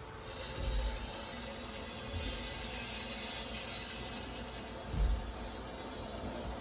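A steady hiss that starts suddenly and stops about four and a half seconds later, with a low thump near the start and another just after the hiss ends.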